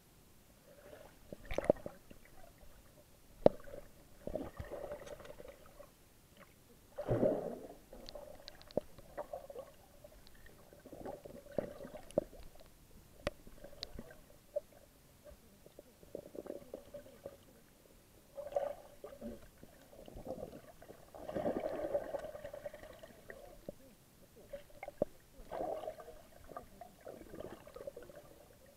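Pool water sloshing and gurgling, heard muffled from under the water, as a dog moves about on the submerged steps. It comes in irregular swells with scattered sharp knocks, and louder surges about seven seconds in and again around twenty-two seconds.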